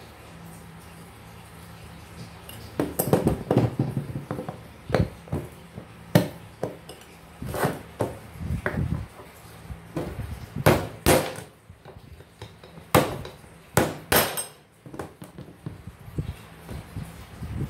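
Metal fan-motor parts and a screwdriver knocking and clinking as they are handled and set down on a workbench, in irregular sharp knocks beginning about three seconds in.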